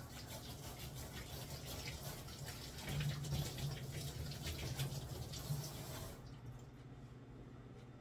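Water running from a kitchen tap into the sink, splashing, until the tap is shut off about six seconds in. A microwave oven's low steady hum runs underneath.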